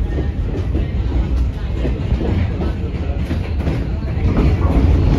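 R46 subway train running on the track, heard from inside the car: a loud low rumble with wheels clattering over the rails, growing louder near the end.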